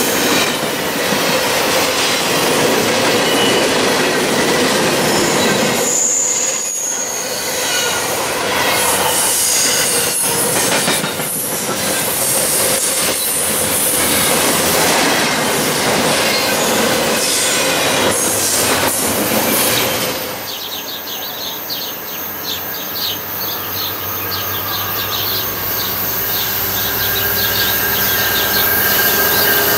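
Double-stack container freight train rolling past at close range, its steel wheels clattering on the rail joints, with a brief high wheel squeal about six seconds in. Just after twenty seconds it gives way to a diesel commuter train approaching, a low steady engine hum that grows louder toward the end.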